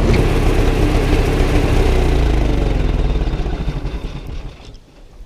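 Old loader tractor's engine running steadily, then winding down and dying away about four and a half seconds in.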